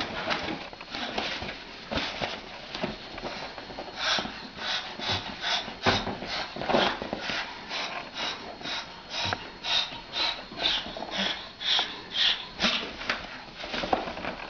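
An animal breathing noisily in short sniffing bursts, about two a second, settling into a steady rhythm about four seconds in.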